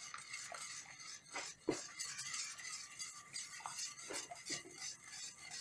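Wire whisk stirring brown gravy in a stainless steel skillet, the wires scraping and tapping lightly against the pan, with a few clinks.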